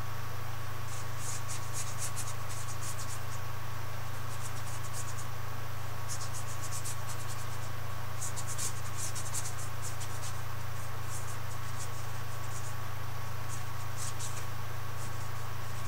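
Paintbrush strokes scratching against a canvas, in quick runs of short strokes with pauses between, over a steady low hum and a faint steady whistle-like tone.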